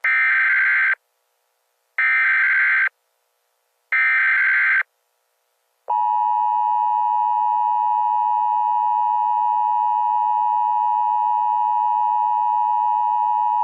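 Emergency Alert System signal: three buzzing bursts of SAME header data, each about a second long and a second apart, then about six seconds in the steady two-tone EAS attention tone starts and holds, announcing a new emergency alert.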